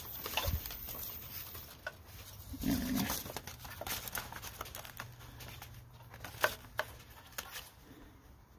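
Hands fitting an engine ignition coil against the flywheel with a paper spacer: small metal clicks, taps and paper rustling. A brief low voice-like sound comes about three seconds in.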